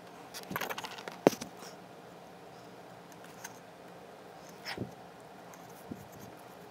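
Faint taps and rustles of hands spreading model-railroad ballast around a dwarf signal: a few small clicks with a short rustle, one sharper tap about a second in, and scattered light ticks after.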